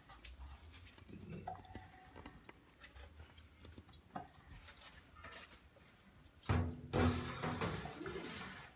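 Kitchen handling sounds: scattered soft knocks and clicks, then a louder clatter of cookware lasting a couple of seconds, starting about six and a half seconds in.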